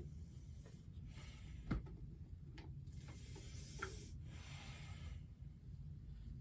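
Faint rustling and rubbing of food packaging being handled, in two spells, with a couple of light knocks.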